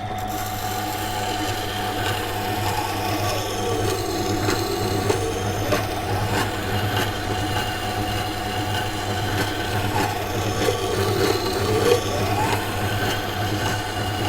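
Water grinder's wet stone wheel running with a steady hum while a carbon-steel knife blade is passed across it to grind the secondary bevel: a gritty rubbing of steel on stone, with a whine that dips and climbs back in pitch twice as the blade is drawn along.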